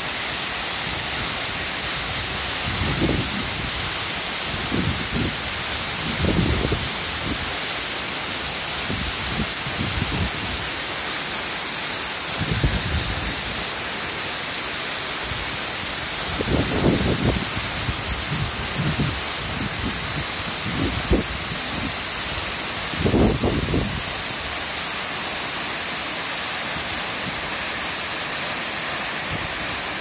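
Wufengqi Waterfall pouring down a rock face onto boulders, heard close up as a steady, loud rush of water. Brief low rumbles come and go over it, strongest about 17 and 23 seconds in.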